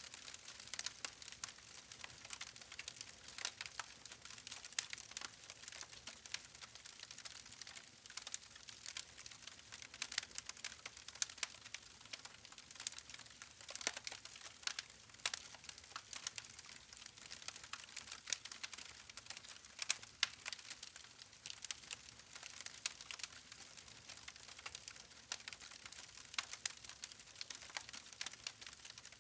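Wood fire crackling: a dense, irregular run of sharp pops and snaps from burning logs over a faint hiss.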